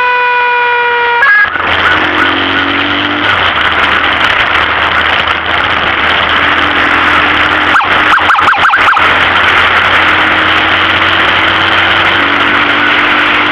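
An ambulance siren's steady, slightly falling tone sounds for about the first second and cuts off. Then comes loud, steady noise of a vehicle driving: engine, road and wind noise, with a brief patch of crackling about eight seconds in.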